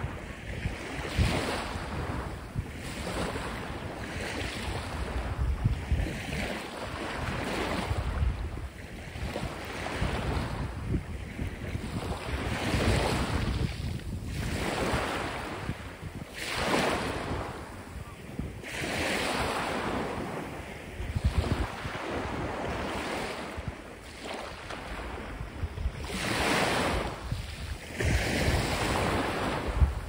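Small waves washing up and breaking on a sandy, pebbly shore, the wash swelling and falling back about every two seconds. Wind buffets the microphone.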